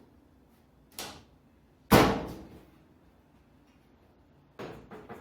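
Sharp knocks from handling the panels and door of a front-load dryer: a small click, then one loud bang about two seconds in with a short ringing tail, and a few lighter knocks near the end.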